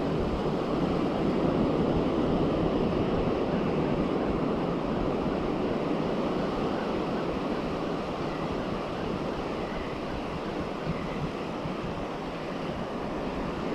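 Ocean surf washing up on a sandy beach in a steady rush, with wind buffeting the microphone.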